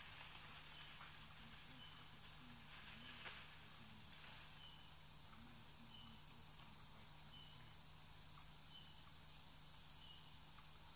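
Tropical rainforest insects droning steadily at a high pitch, with a short high note repeating about once a second and a faint low wavering sound beneath.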